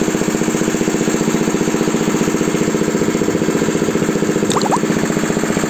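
Homemade tractor's engine running steadily with a fast, even beat, with a couple of short high chirps about four and a half seconds in.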